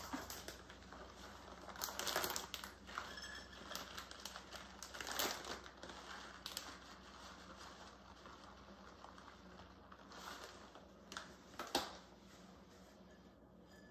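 Plastic package of shredded Parmesan crinkling as it is handled and cheese is measured out, in a few short spells with quieter gaps between.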